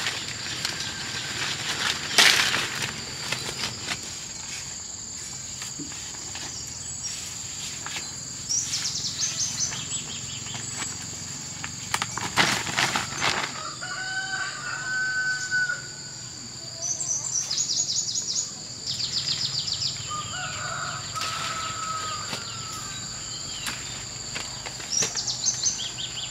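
Rural outdoor ambience: a steady high insect drone, short bird trills now and then, and a rooster crowing twice in the middle. Loud rustling crackles about two seconds in and again about twelve seconds in, like leafy branches being pushed through or pulled.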